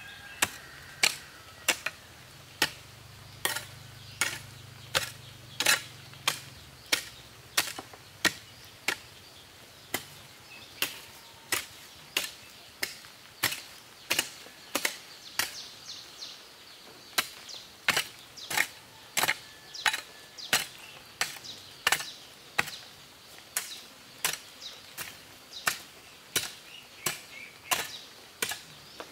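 Steady rhythmic chopping, about three sharp strikes every two seconds, each with a brief ringing tail.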